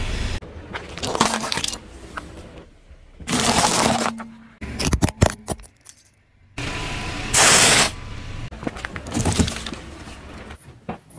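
A car tyre rolling over and crushing objects in a string of short cuts: hard plastic cracking and snapping apart in a cluster of sharp cracks midway, and cardboard milk cartons being flattened near the end.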